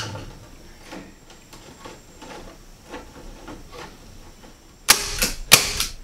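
Snips cutting wire mesh screen: a sharp click, then a string of light snipping clicks. Near the end comes a quick cluster of loud knocks and clatters as the mesh and the wooden box are handled.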